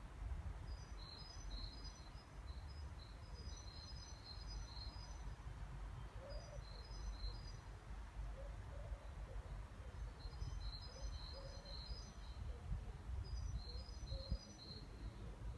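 Faint birdsong outside the nest box: short phrases of high chirps that repeat every couple of seconds, over a steady low rumble.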